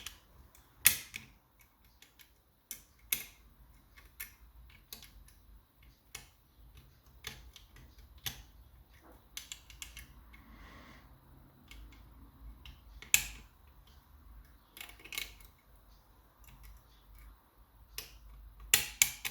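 Homemade lever-lock picking tools working the levers inside an ERA Invincible mortice lock: irregular sharp metallic clicks and taps, a few seconds apart, as the levers are lifted and set.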